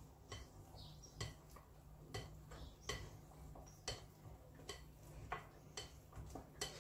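Spatula stirring thick flour batter in a glass mixing bowl, clicking faintly and irregularly against the glass about twice a second as the lumps are worked out.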